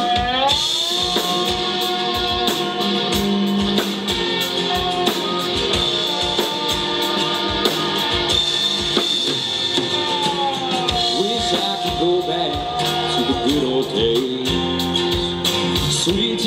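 Live band playing the instrumental intro of a song on drum kit, bass, acoustic guitar and electric guitars. A lead line of long held notes slides up into pitch about half a second in and slides down again around ten seconds.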